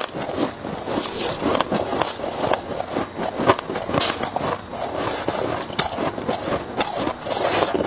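Chewing of freezer frost, picked up close by a clip-on microphone: dense, irregular crunching and crackling of ice between the teeth.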